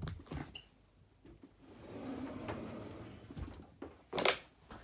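Handling noises as trainers are moved about on the floor: a few light clicks, soft rustling, and one sharp knock about four seconds in.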